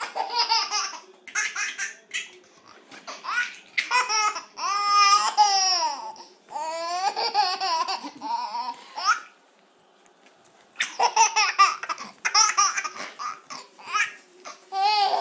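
Baby laughing in high-pitched fits, with squeals that glide up and down in pitch and a short lull about nine seconds in.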